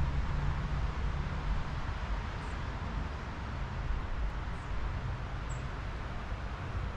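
Steady wind through trees, a continuous hiss of moving air over a low rumble, with a few faint, very short high-pitched chirps scattered through it.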